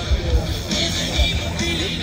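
Music with a heavy bass beat.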